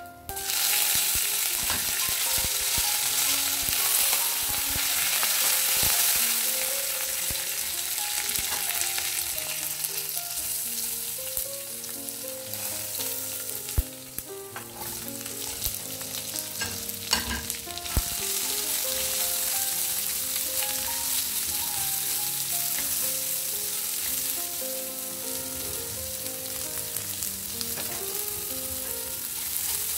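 Hot oil sizzling in a non-stick kadai as cumin seeds, ginger-garlic paste and curry leaves fry, then sliced onions go in and are stirred. The sizzle starts suddenly, with a couple of sharp clicks about halfway through as the onions are added.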